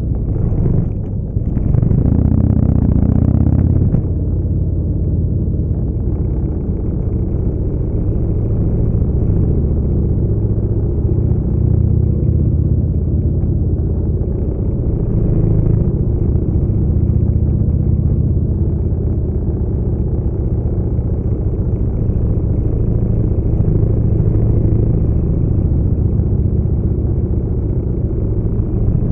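Harley-Davidson motorcycle's V-twin engine running at low speed close to the microphone, with a short dip just after the start and a louder stretch about two to four seconds in.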